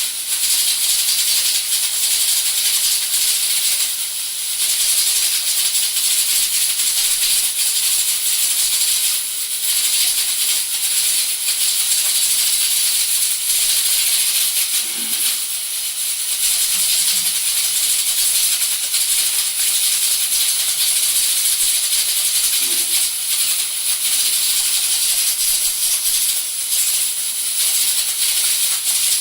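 Two Prestige pressure cookers venting steam through their whistle weights: a steady, loud hiss with a rattling edge that dips briefly now and then.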